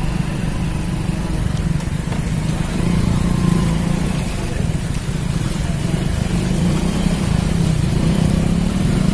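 Motorcycle engine running steadily while the bike rides through shallow floodwater on a road, with a faint hiss of wind and water.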